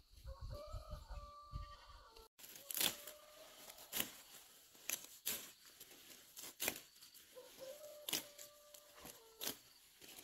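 Scissors snipping through leafy vegetable stems, about seven sharp cuts spaced a second or so apart. An animal gives a long steady call twice in the background.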